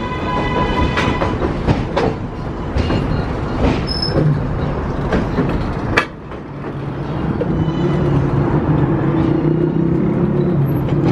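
R188 subway train on the 7 line running past on elevated track and pulling out, its wheels clacking over rail joints with sharp clicks. About six seconds in, a loud click, and then a steady low hum takes over as the last cars go by.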